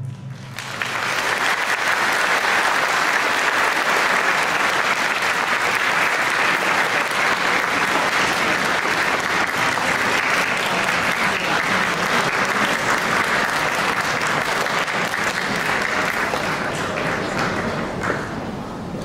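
Audience applauding, swelling in about half a second in and dying down near the end.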